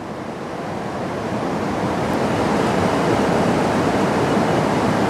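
Steady rushing noise of wind and moving water on an open river, growing a little louder over the first two seconds.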